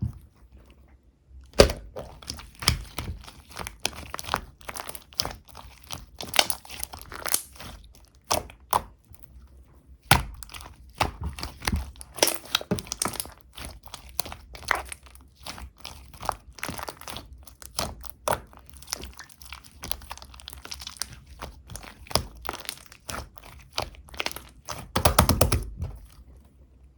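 Slime being pressed, folded and stretched by hand: a dense run of crackling clicks and pops, with a longer, louder squish near the end.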